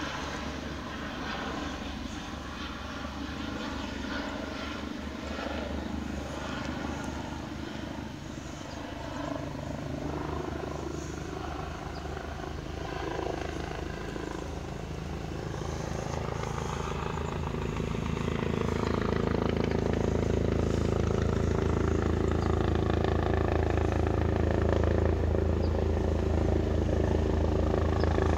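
Airbus EC145 twin-turbine helicopter approaching and descending to land, its rotor and turbine sound growing steadily louder over the second half.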